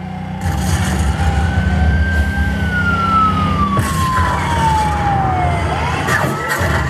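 Dark-ride sound effects over the attraction's speakers. A heavy low rumble swells about half a second in, and a long whine rises slightly and then falls steadily in pitch over about four seconds.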